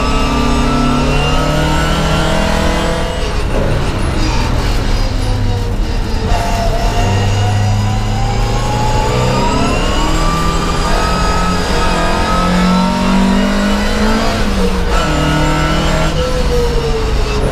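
Volvo PV544 race car's four-cylinder engine heard from inside the cabin, working hard on track. It drops in pitch as the car slows for corners, then climbs steadily as it accelerates hard, twice.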